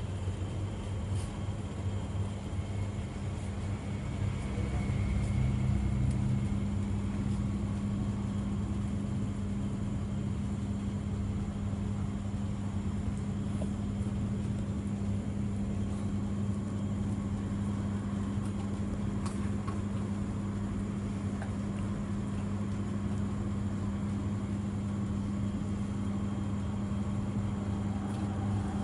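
Steady low hum of a running motor or engine, a little louder about five seconds in.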